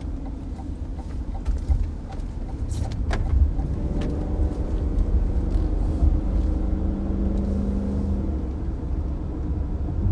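Low, steady rumble of a car's road and engine noise heard from inside the moving vehicle, with a few faint clicks in the first few seconds.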